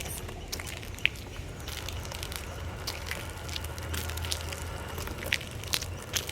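Small RC car running over rough, loose ground: a low steady hum under scattered crackles and clicks, with a few sharper ticks, as the tyres crunch over the surface.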